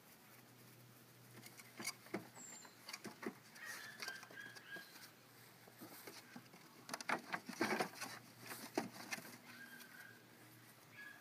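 Faint high whimpering squeaks from young animals, a few held for about a second, among scattered light taps and scratching.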